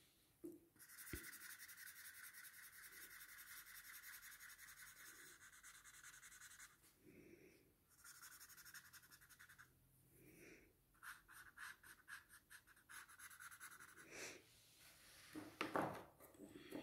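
Faint shading strokes of a drawing tool rubbing quickly back and forth on paper, in three runs with short pauses between them.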